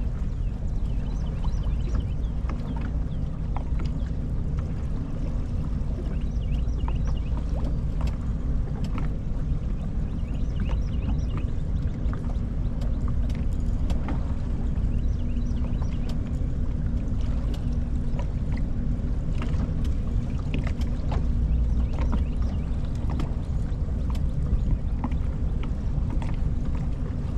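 Boat motor running steadily on the river: a low, even rumble with a faint steady hum, and scattered light knocks over it.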